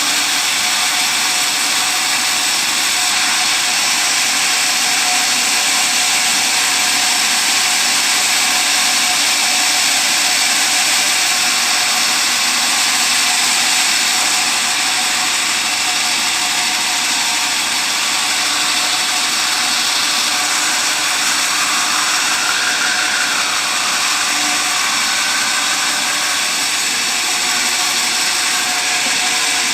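A sawmill's saw running steadily and loudly, without a break.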